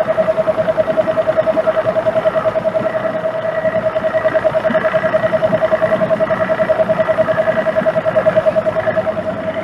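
Boat motor running steadily: a constant whine with a fast, even pulse over engine and water noise.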